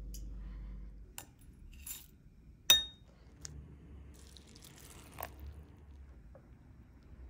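Dishes and utensils clinking: a few light taps and scrapes, with one sharp clink near the middle that rings briefly. A low steady hum stops about a second in.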